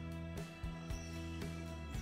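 Background music with steady held notes and a regular beat.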